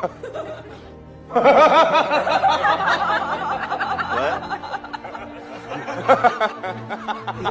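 Music with a burst of giggling laughter that starts just over a second in and lasts a few seconds.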